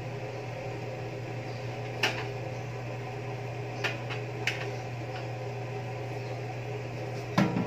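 A pot of pork stew broth boiling hard on a gas burner, with a steady low hum under it. A few sharp knocks of kitchen utensils break in, the loudest near the end.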